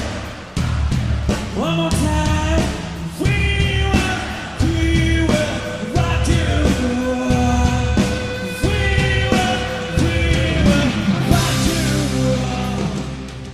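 A song with singing and a steady beat, which fades away near the end.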